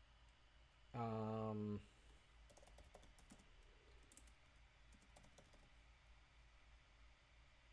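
Computer keyboard typing: a quick run of faint key clicks. They come after a short, steady low hum about a second in, which is the loudest sound.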